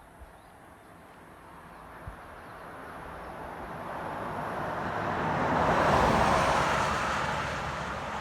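A motor vehicle passing on the road: its tyre and engine noise builds, is loudest about six seconds in, then fades away.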